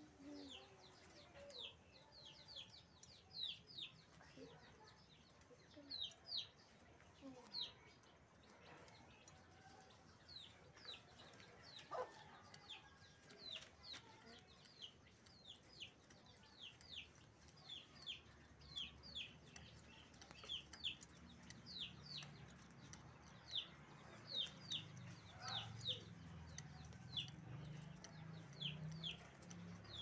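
A small caged songbird chirping over and over: short, high notes that each drop in pitch, coming in quick runs. A faint low hum joins past the middle.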